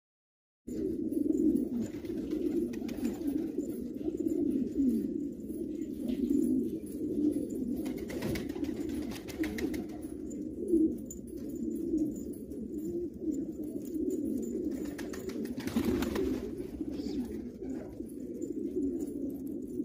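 Domestic pigeons cooing continuously, several birds overlapping into a steady low warble, starting less than a second in.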